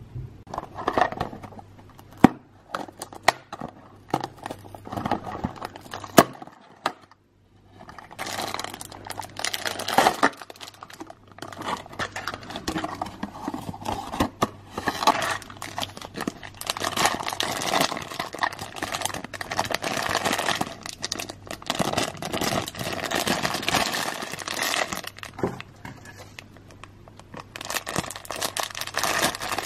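Clear plastic wrapping crinkling and rustling as small packaged toy parts are handled and opened, with a few sharp clicks and taps in the first several seconds and a brief lull before the crinkling sets in.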